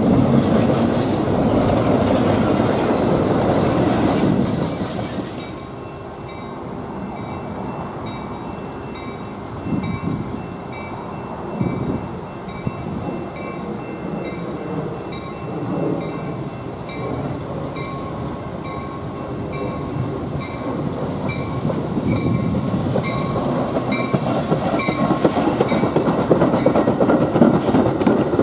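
A double-stack intermodal freight train rolls past close by with loud steady wheel and car noise. It is cut off abruptly, followed by a grade-crossing warning bell ringing in an even repeating pattern as a Metra commuter train of bilevel gallery cars approaches cab-car first. The train's wheel noise builds near the end as it passes close by.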